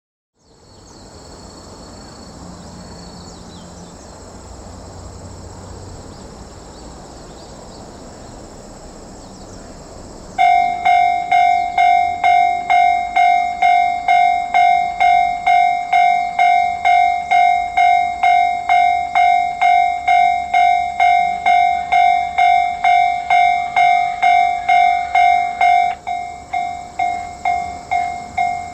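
Japanese railway level-crossing warning bell. It starts suddenly about ten seconds in, after a faint steady outdoor background, and rings in sharp strikes about twice a second, signalling that a train is approaching. The strikes become somewhat weaker near the end.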